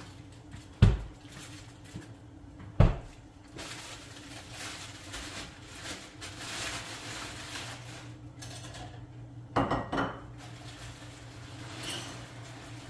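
Two sharp knocks about two seconds apart near the start, then a short clatter of clinks a little past halfway, over a low steady hum: dishes, pots and cupboards being handled in a kitchen.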